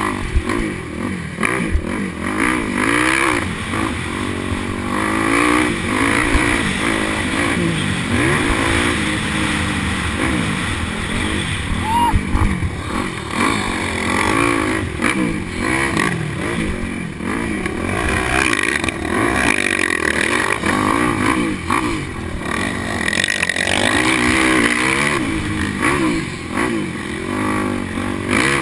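Dirt bike engine racing around a motocross track, revving up and down again and again as the rider accelerates, shifts and slows for turns, with wind rushing over the onboard microphone.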